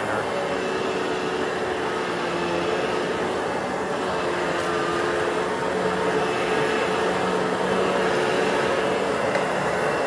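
Cirrus Professional Grade vacuum cleaner running steadily: a rush of air with a constant motor hum.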